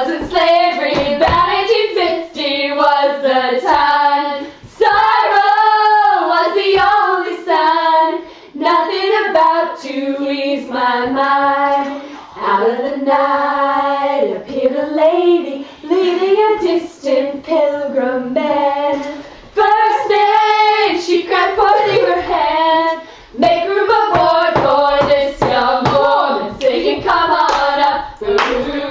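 A group of young voices singing a song together, with hand-clapping along.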